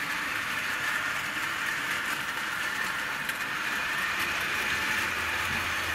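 Hornby 0-4-0 tank locomotive's small can motor whirring steadily as the model train runs round the track with three coaches, its wheels rolling on the rails, at the battery controller's lowest setting.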